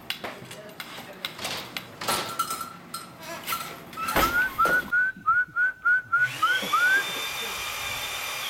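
Wooden floor loom knocking and clacking as the weaver throws the shuttle and swings the beater. In the middle comes a run of about nine short rising whistled chirps, followed by a steady whistle-like tone near the end.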